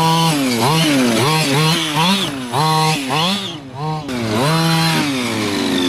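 Losi 5ive-T RC truck's 26cc two-stroke gas engine revving under throttle: held at high revs, then blipped on and off many times, the pitch dropping and climbing with each blip, before settling at high revs again and easing down near the end.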